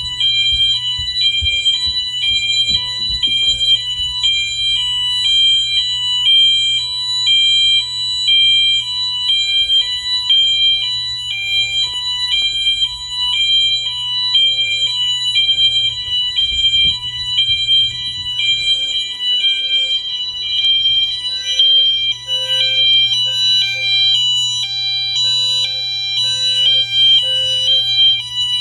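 Wheelock MT multitone fire alarm horns sounding the hi-lo tone: a loud electronic alarm switching back and forth between a high and a low note several times a second. This is the fire alarm system in alarm.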